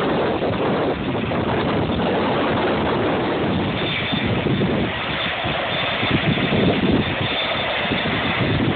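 Jet airliner engines running under heavy wind buffeting on the microphone, with a high engine whine coming in about halfway through.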